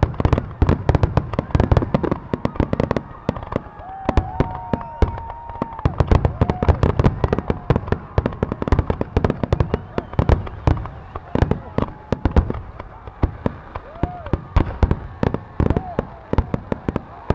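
Aerial fireworks shells bursting in a dense barrage: many sharp bangs and crackles a second, thinning out just before the end.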